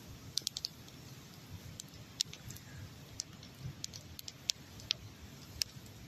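Faint wood campfire crackling: small sharp pops and ticks at irregular intervals over a low hiss.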